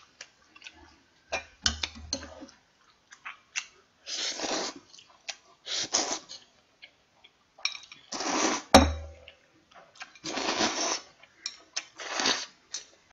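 Noodles being slurped several times in short noisy bursts of about half a second each, with sharp clicks of metal tongs and a spoon against a bowl. One loud clink, a little after the middle, rings briefly.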